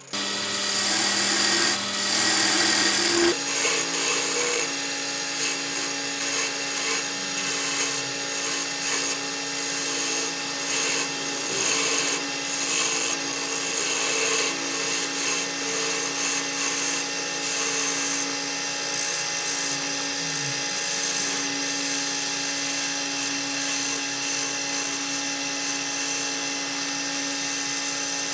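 Wood lathe running with a steady motor whine while a turning tool scrapes and cuts shavings from a spinning wooden goblet. The sound changes about three seconds in, then holds steady.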